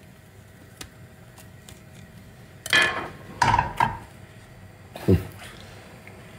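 Knife and fork clinking and scraping on a plate while food is cut and eaten: a few faint clicks, then several short, louder clatters about three seconds in and again near the five-second mark.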